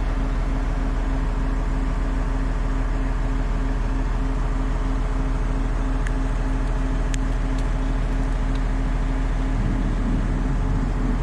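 Heavy diesel engine of the stranded lowboy rig's heavy equipment running steadily at a constant speed, a low even drone with no revving.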